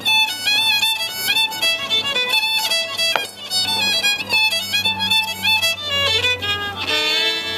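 Scottish fiddle music: a lively fiddle tune of quick, changing notes, which settles onto a long held chord near the end.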